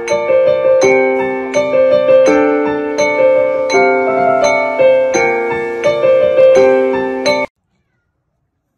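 Background music: a gentle keyboard melody of struck, ringing notes that cuts off abruptly near the end.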